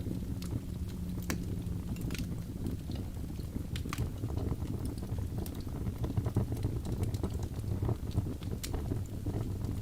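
Wood fire burning in a fireplace: a steady low rumble of flames with scattered, irregular sharp crackles and pops.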